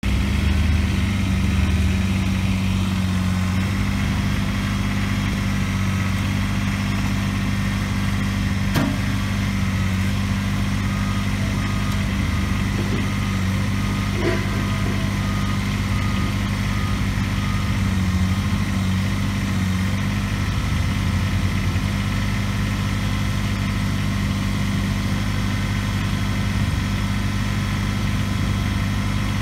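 Kubota BX23S compact tractor's three-cylinder diesel engine running at a steady speed, with two short clicks partway through.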